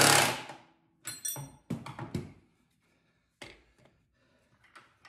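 A cordless impact driver tightening the ski mounting bolt stops about half a second in, followed by a handful of separate knocks and metal clinks of tools being handled and set down, spread through the next few seconds.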